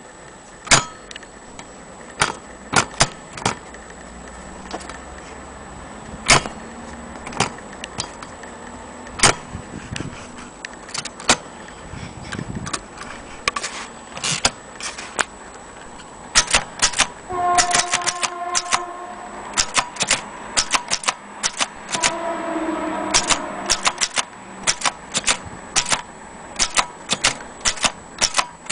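Vintage Corona portable typewriter being typed on: sharp key strikes, slow and scattered at first, then coming in quicker runs in the second half.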